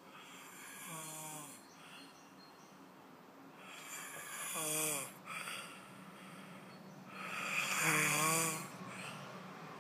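Weird snoring from a sleeper: three snores about three and a half seconds apart, each a pitched, wavering drone over a breathy hiss, the first one fainter than the other two.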